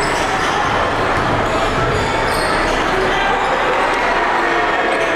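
A basketball dribbling on a hardwood court under a steady din of crowd chatter, echoing in a gymnasium.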